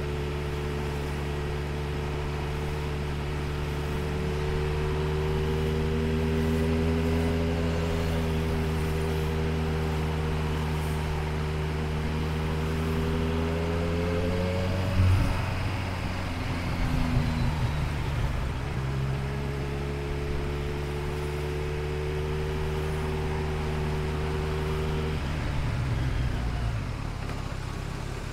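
Motorcycle engine running at a steady cruise over road and wind noise. Its note rises slightly, breaks off briefly about halfway through, then holds steady again and drops away near the end.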